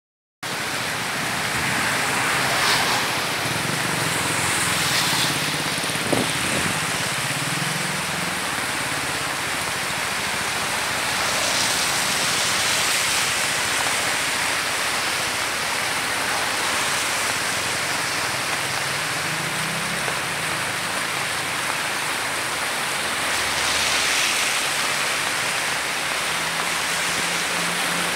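Swollen, fast-flowing floodwater rushing and churning down a concrete urban channel in heavy rain, a loud, steady rush. A low engine hum from passing traffic rises and fades now and then.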